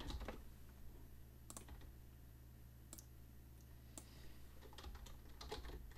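A few faint, scattered single clicks of computer keys, a second or more apart, over a steady low hum.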